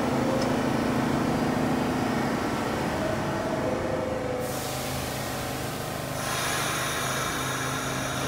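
New York City subway train standing at the platform with its doors open, humming steadily. About three seconds in a descending two-note door chime sounds. A hiss follows and swells a couple of seconds later, fitting the air-operated doors closing.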